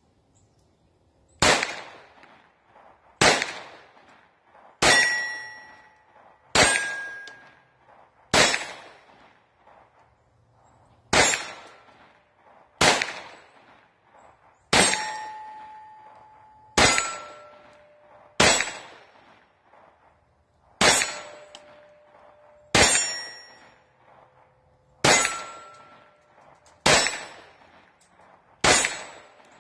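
Glock 44 .22 LR pistol fired slowly and steadily at steel targets, about fifteen shots roughly two seconds apart, many hits followed by the ring of the steel plate. The string runs without a stoppage: the aftermarket Promag 18-round magazine is feeding properly.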